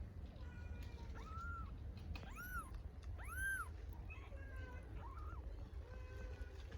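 Hungry kittens meowing again and again for their mother cat: thin, high calls that rise and fall, the two loudest about halfway through, over a steady low rumble.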